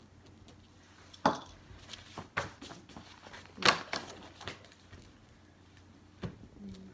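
Paper rustling and small objects being handled and set down on a wooden table, in several short separate bursts, the loudest about three and a half seconds in.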